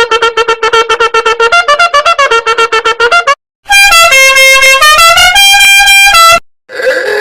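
Meme sound effects played back to back: a fast run of short, staccato musical notes, then after a brief break a loud, blaring horn-like tune of held notes stepping up and down, and near the end the start of another pitched clip with sliding tones.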